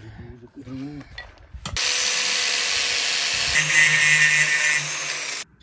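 A power tool runs loudly for about four seconds with a steady whine. It starts suddenly a little under two seconds in, its sound changes partway through, and it cuts off abruptly near the end.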